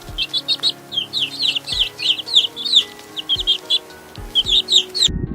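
Several chicks peeping: rapid, high, downward-sliding cheeps, several at once. About five seconds in it cuts off suddenly and music begins.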